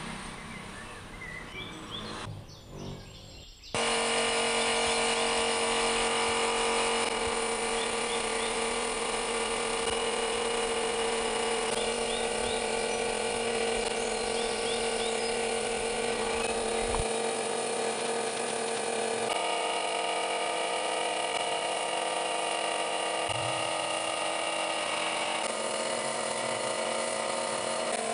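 Airbrush compressor running: a steady motor hum with hiss, starting suddenly about four seconds in. Birds chirp faintly.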